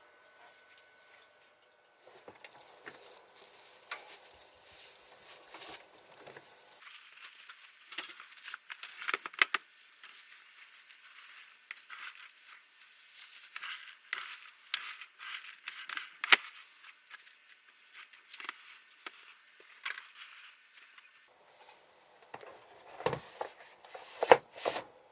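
Close, irregular rustling and crinkling of fur and clothing rubbing near the microphone, with sharp crackles scattered through it, as the cat is held and petted.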